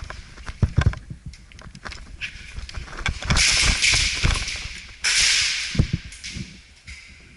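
Footsteps and gear thudding as an airsoft player moves on foot, with two long hissing rustles in the middle, one straight after the other.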